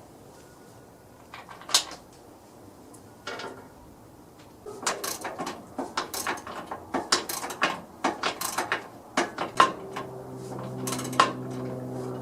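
Metal parts and tools clicking and clanking: a couple of isolated knocks, then a quick, irregular run of sharp clinks. A steady hum joins about ten seconds in.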